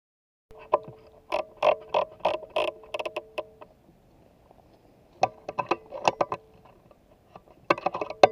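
Handling noise from a scope-mounted hunting rifle: clusters of sharp clicks and knocks, with a faint steady hum under them. They start about half a second in and come in three bursts.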